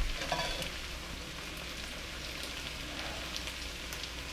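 Chicken and vegetables sizzling in oil in a frying pan as they stir-fry, with a steady crackle.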